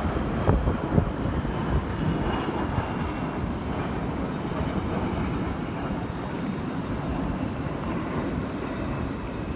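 Large jet aircraft flying past at a distance: a steady rushing roar of its engines, with a faint high whine that slowly drops in pitch. Wind buffets the microphone a few times in the first second.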